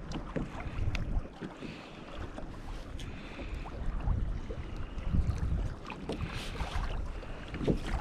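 Wind buffeting the microphone in uneven low rumbles out on the sea, with a few small clicks.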